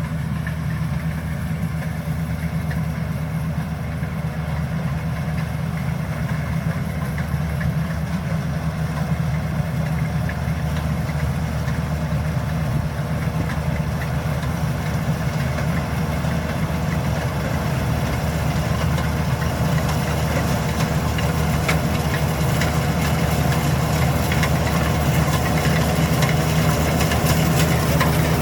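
Rice combine harvester's engine running steadily, a continuous hum that grows gradually louder over the second half.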